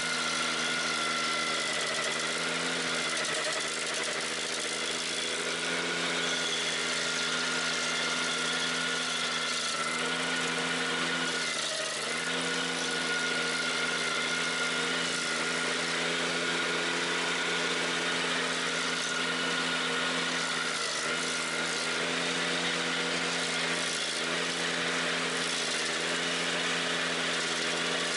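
Ventrac 4520Z tractor engine running steadily under load while its KC180 stump grinder cutter wheel chews into a tree stump, with a hiss of grinding over the engine note. The engine note sags briefly several times as the wheel bites into the wood.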